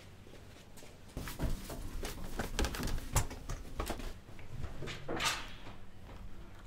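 Footsteps with scattered knocks and rustles from about a second in, then a wooden cabinet door being handled near the end.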